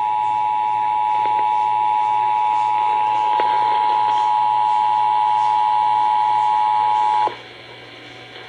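Emergency Alert System attention signal: the steady two-tone alarm (853 and 960 Hz sounded together) heralding a broadcast severe weather warning. It cuts off sharply about seven seconds in, leaving a low steady hum on the line.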